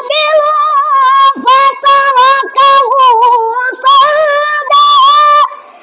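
A child reciting the Qur'an in melodic tilawah style: one high voice holding long, wavering ornamented notes in several phrases broken by short breaths. It stops shortly before the end.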